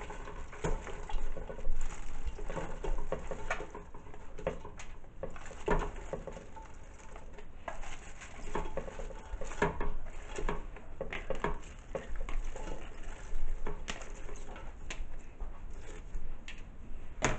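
Chopped cabbage pieces tipped from a plastic colander into a large cooking pot, falling and rustling in an irregular patter, with occasional light knocks.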